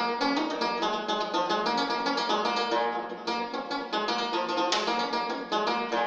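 Banjo playing a fast instrumental Soussi melody in quick, rapid plucked notes.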